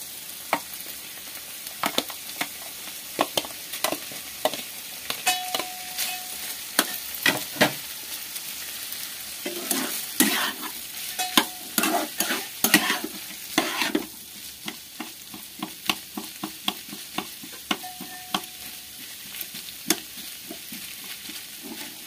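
A spatula scraping and tapping against a frying pan, irregularly and several times a second, as a grated beetroot, carrot and mashed potato filling is mixed and mashed over the heat. A steady sizzle of the frying mixture runs underneath, easing off a little past the middle.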